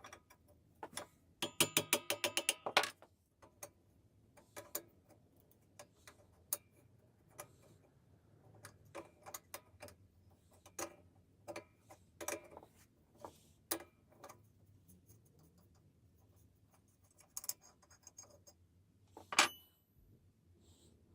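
Small metal parts being handled and knocked together: a quick rattling run of ringing metallic clicks near the start, then scattered taps and clinks, and one loud ringing clink near the end.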